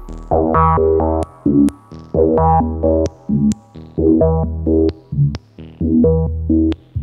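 5U modular synthesizer patch running through a Synthetic Sound Labs Serge Triple Waveshaper, playing a repeating sequence of short, rich-toned pitched notes punctuated by sharp clicks.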